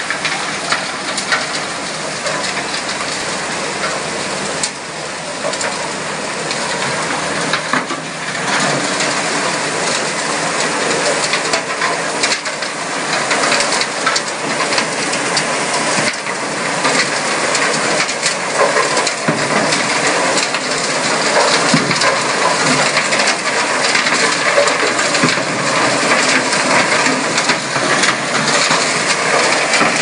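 Muddy water and gravel pouring down the stepped steel chute of an alluvial gold washing plant: stones rattle and clatter against the metal over a steady rush of water. It grows louder after about eight seconds.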